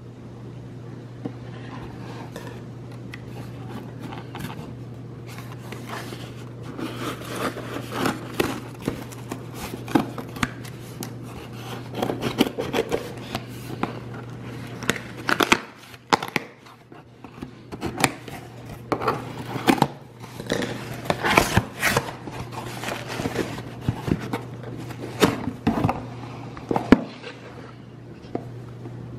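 A cardboard shipping box being opened and unpacked by hand: irregular scraping, tearing and rustling of cardboard and packaging, over a steady low hum.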